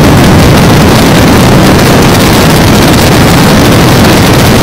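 Wind buffeting a camera microphone, a loud, steady rumbling noise, with the audio boosted until it distorts.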